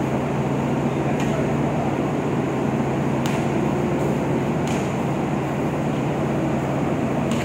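Steady drone of a ship's machinery and ventilation filling an enclosed cargo deck, with a constant low hum. A basketball bounces on the deck about four times.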